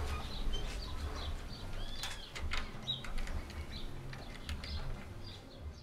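Small birds chirping in short, scattered calls over a pulsing low rumble; the sound cuts off abruptly near the end.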